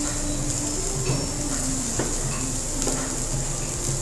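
Beef steak sizzling on a hot tabletop grill plate: a steady frying hiss, with a few light clicks about once a second.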